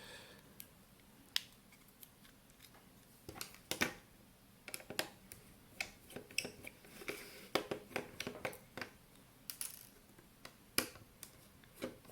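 Irregular sharp clicks and light taps of small plastic and metal parts being handled during the teardown of a cheap Vivitar digital camera, some close together and a few louder than the rest.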